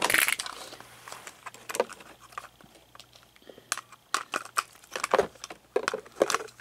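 Hard plastic toy figure being handled: irregular small clicks and knocks, with packaging plastic crinkling briefly at the start.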